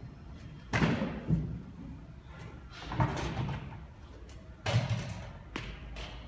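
A metal hand truck clanking and thumping on a metal loading ramp as it is tipped out from under a stack of plastic chairs and pulled back down the ramp. There are about five knocks and rattles, the loudest about a second in and again near the end.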